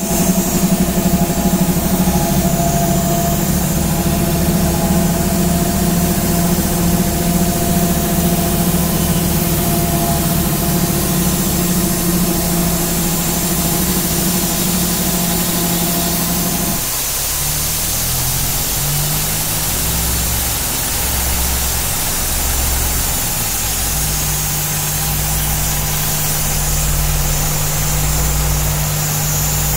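Engine-driven double air compressor for sandblasting running steadily. About 17 seconds in the pitch drops and the sound settles into a slow, regular pulsing.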